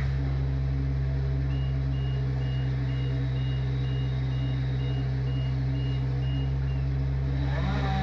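Vehicle backup alarm beeping about twice a second over a steady engine running; the beeping starts about a second and a half in and stops near the end.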